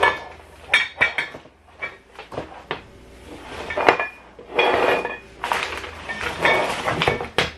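Parts of a flat-pack chair being handled during assembly: irregular metallic clinks and knocks, some ringing briefly, with stretches of scraping and rustling about halfway through and again near the end.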